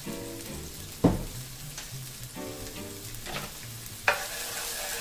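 Diced onion sizzling in olive oil in an electric skillet, stirred with a wooden spoon. Two sharp knocks of the spoon on the pan, about a second in and near the end, the first the loudest.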